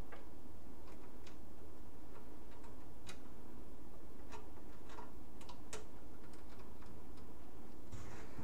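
Scattered light metallic clicks and ticks of a screw being handled and driven with a screwdriver into a PC case to secure the power supply, over a steady low hum.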